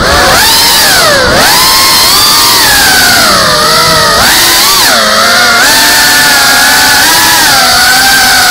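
FPV quadcopter's brushless motors and propellers whining in flight, the pitch sweeping down and back up several times with throttle changes, then holding steadier over the last few seconds.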